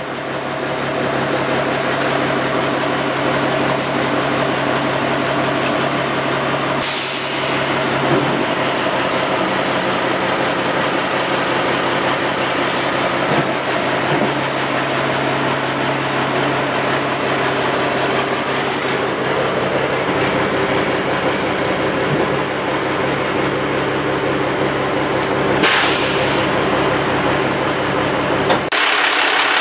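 Cummins L10 diesel engine of a rollback truck running steadily with the PTO engaged, driving the hydraulic pump that slides and tilts the bed; it gets louder in the first second. Two brief hisses, about seven seconds in and near the end.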